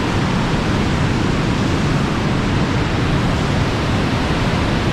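Loud, steady rush of an 85-foot waterfall pouring into a narrow quartzite canyon, an even wash of noise that does not change.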